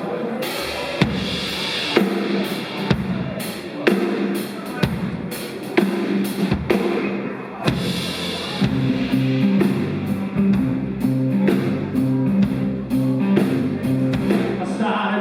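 Live rock band playing an instrumental intro: a drum kit beats out a steady pulse of kick and snare with cymbal crashes. About two-thirds of the way through, bass and guitar come in louder with held notes.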